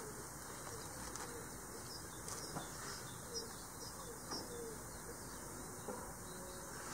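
Birds calling: several short, low, falling coo-like calls and scattered high chirps over a soft background hiss.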